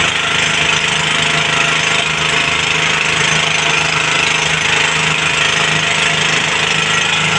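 A small engine running steadily with a rapid knocking beat, driving the pump that feeds a fire hose, over the hiss of the hose's water jet spraying onto the burned wooden boat hull.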